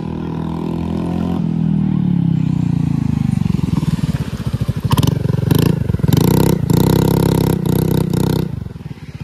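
Scooter engine running through a freshly fitted aftermarket Akrapovic-style exhaust. Its revs fall away over the first few seconds, then the throttle is blipped in a run of short, loud surges before it settles near the end.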